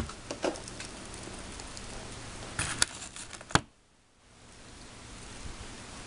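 Fingers pressing and scraping dry black candy granules into a plastic candy-kit mould tray: light rustling scrapes on the plastic with a few sharp clicks, the loudest about three and a half seconds in, followed by a brief near-silent gap.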